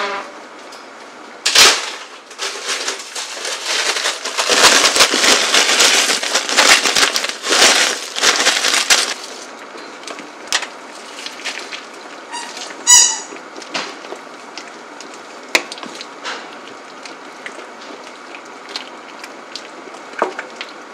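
A stainless-steel pot of sujebi (hand-torn dough soup) boiling hard, close to boiling over, with a wooden spoon stirring in it. Dense crackling bubbling with spoon clicks for the first several seconds, then a quieter boil with scattered knocks.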